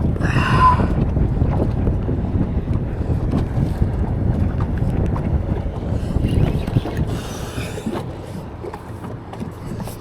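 Wind buffeting the microphone on a small boat on open water, a dense low rumble that eases off near the end, with a brief high-pitched sound about half a second in.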